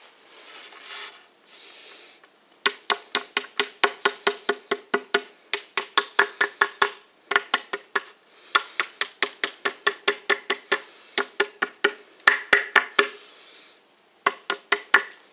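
Rubber mallet tapping wooden dowels into the holes of a particleboard shelf panel. The taps are light and quick, about five a second, and come in runs with short pauses; they start a few seconds in.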